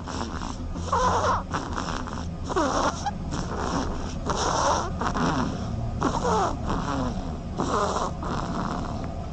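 Duckling snoring: a small breathy snore with a thin wavering pitch in it, repeating about every second and a half.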